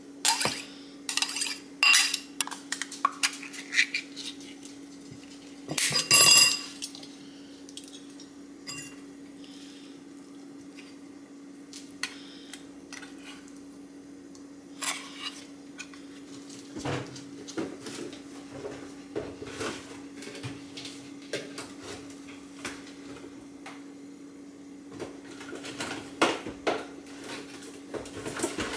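Metal fork clinking and scraping against a ceramic bowl and an open tuna can while mixing tuna. Quick clinks come in the first few seconds, with a louder clatter about six seconds in, then sparser taps and a busier run near the end. A steady low hum runs underneath.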